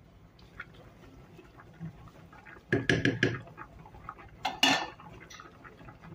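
Pots and utensils clattering in the kitchen: a rapid run of metal knocks about three seconds in, and a second shorter clatter just before five seconds.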